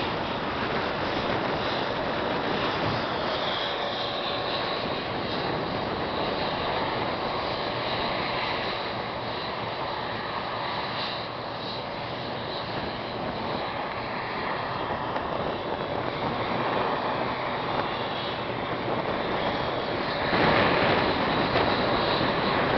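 Jet engines of an Embraer 190 airliner running steadily as it taxis on the runway, as a dense even whine-and-rush, which grows louder near the end.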